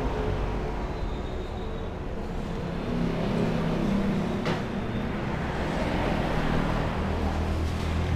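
Road traffic going by on a street: vehicle engines pass with a steady hum of tyres and motors. A single sharp click about four and a half seconds in.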